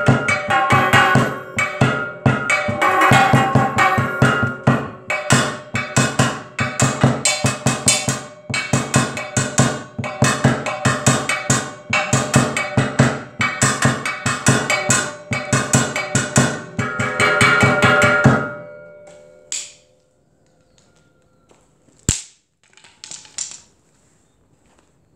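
Home-made percussion set of cut steel roofing-tile pieces and a plastic cement-bucket drum, struck fast with drumsticks in a calypso-style rhythm. The steel pieces ring at several distinct pitches. The playing stops about 18 seconds in and the ringing dies away, followed by a few scattered knocks and one sharp click.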